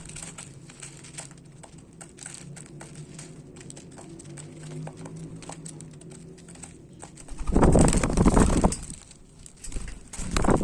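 Rapid light clicking of birds pecking at seed, over a low steady hum. About seven seconds in comes a loud rushing burst, and another near the end.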